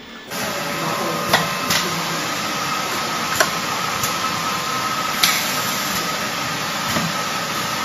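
Blower wheel welding machine in a workshop: a steady hiss with a faint high whine, broken by about six sharp metallic clicks and knocks as a steel ring is loaded into the machine.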